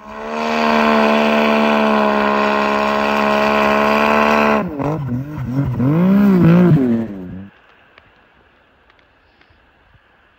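Snowmobile engine held at high, steady revs, then revving up and down from about four and a half seconds in as the sled works through deep powder. It cuts off at about seven and a half seconds, leaving a faint hiss.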